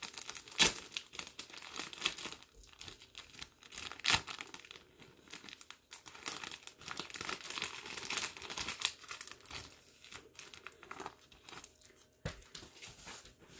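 Clear plastic comic-book sleeve and paper packaging crinkling and rustling as they are handled, with a few sharper crackles, the loudest about half a second in.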